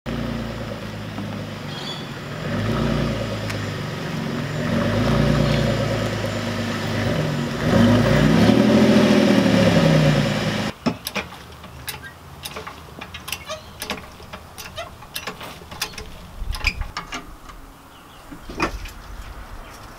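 Holden VE Commodore's exhaust as the car pulls in and runs, with one rev that rises and falls about eight seconds in. It cuts off suddenly near the eleven-second mark, followed by scattered metallic clicks and knocks as a trolley jack is worked under the car.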